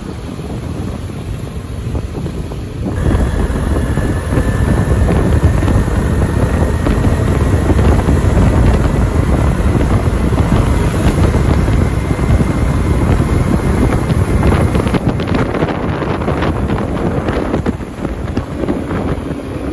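Bus engine and road noise: a loud low rumble with wind buffeting the microphone and a faint whine rising slowly in pitch. It swells about three seconds in and eases off near the end.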